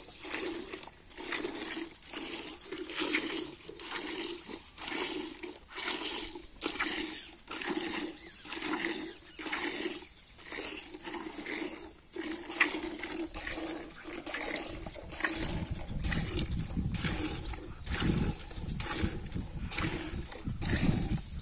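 Cow being milked by hand: jets of milk squirting into a pail in a steady rhythm, about one squirt a second or a little faster.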